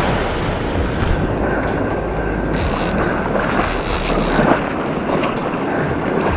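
Wind buffeting the microphone over the rush of breaking surf, with a heavy low rumble that eases a little after about four and a half seconds.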